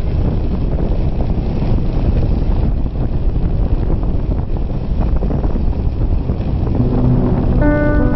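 Wind buffeting the microphone of a camera on a moving motorbike, a loud steady rumbling rush of air and road noise. A few music notes come in near the end.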